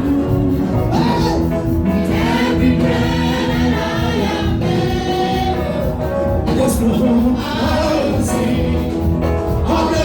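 Gospel praise music: a choir singing over a band with a steady, even beat.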